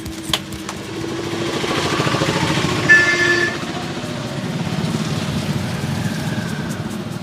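A motor vehicle passing on the street, its engine sound building over the first couple of seconds and easing off, with a short horn blast about three seconds in.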